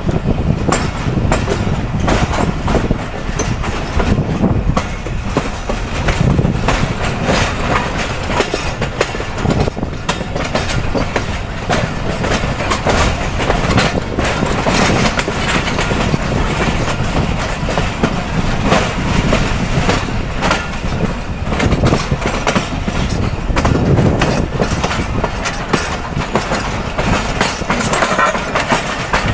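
Passenger train's wheels running over the track: a loud, continuous rumble with a dense, irregular clickety-clack of wheels striking rail joints.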